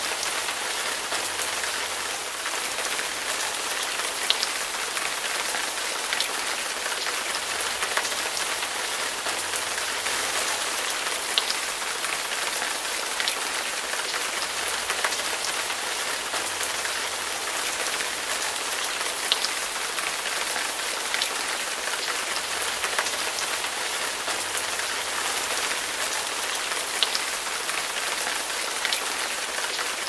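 Rain soundtrack: steady rainfall on a surface, with occasional sharper single drop hits every second or two.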